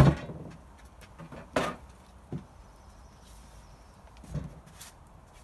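A few separate wooden knocks and thumps as a handsaw and foam-faced boards are handled on a wooden table. The loudest comes right at the start, then three or four lighter knocks spaced a second or more apart.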